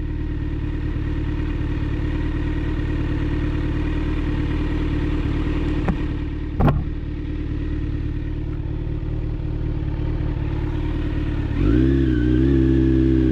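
Vehicle engine running steadily at a constant pitch, with a brief whoosh about six and a half seconds in and a wavering tone joining near the end.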